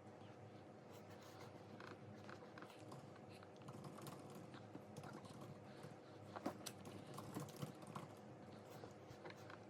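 Faint, scattered small clicks and taps of a toddler eating at the table, utensils and dishes knocking lightly, with a few sharper clicks about six to eight seconds in.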